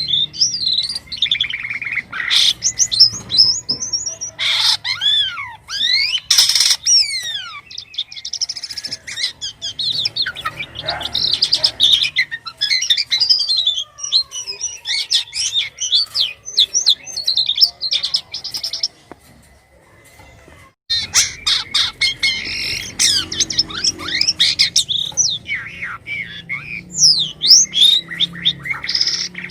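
Jalak kapas starling singing a fast, varied song of chirps, whistles and rising and falling squeaks, with a pause of about two seconds about two-thirds of the way through.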